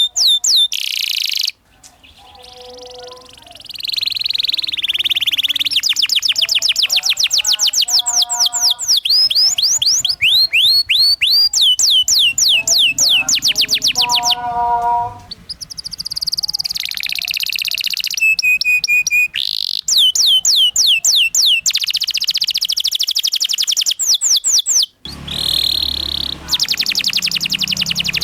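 Domestic canary singing a loud, fast rolling song: long runs of rapid, repeated high whistled slurs and trills, with a few abrupt breaks where the recording is cut.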